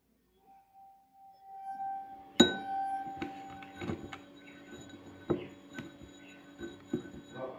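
Wine glasses partly filled with water played as a musical instrument. A single steady glass tone swells for about two seconds. Then a sharp clink sets several glass tones ringing, followed by about half a dozen lighter clinks, each leaving the glass ringing.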